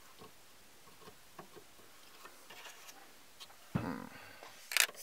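Small faint clicks and taps of needle-nose pliers and a plastic blade fuse against the fuse box as a new 20-amp fuse is pushed into its slot. This is followed near the end by a sudden louder thump and sharp rustling handling noises.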